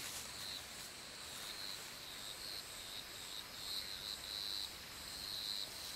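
Insects calling: a high, steady-pitched trill that comes and goes in uneven pulses over a faint background hiss.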